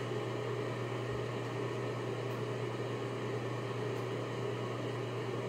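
Steady low hum with an even hiss from a running ventilation fan.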